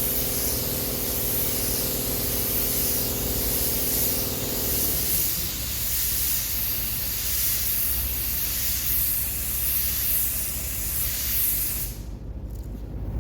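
Compressed-air paint spray gun spraying automotive paint onto a bus body panel, a steady hiss that stops shortly before the end. A steady low hum runs underneath and cuts off about five seconds in.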